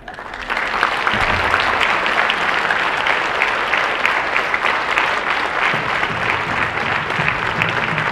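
Theatre audience applauding. The clapping starts about half a second in, fills out within a second and then carries on steadily.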